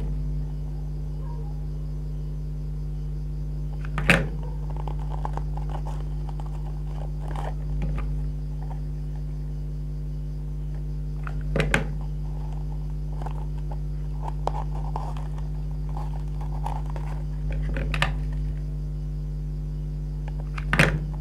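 Steady low electrical hum with about five sharp clicks and knocks spaced several seconds apart, from a hot glue gun and fabric being handled while strips are glued onto a cone.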